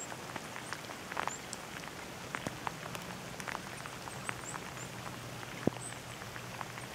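Steady rain falling on a lake's surface: an even hiss with many scattered sharp drop ticks, one louder tick near the end.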